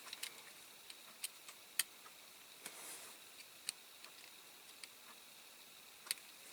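Light, irregular clicks and taps of small model parts and hand tools being handled on a workbench, while a part is being fitted onto a diecast toy car. The clicks come every second or so, with a sharper one near the end.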